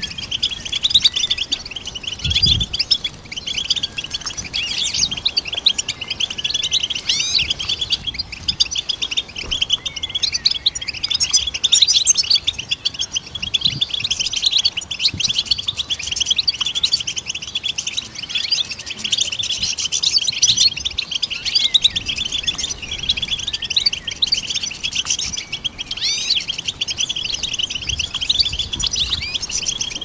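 European goldfinch singing: a continuous, fast twittering song of short chirps and trills.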